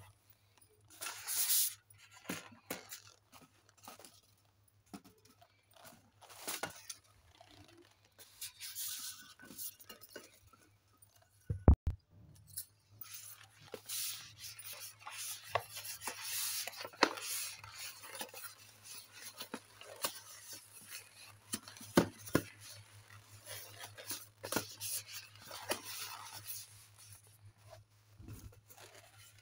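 Inflated latex modelling balloons being handled and twisted by hand, rubbing against each other and rustling against a heap of deflated balloons. A sharp thump about twelve seconds in is the loudest sound.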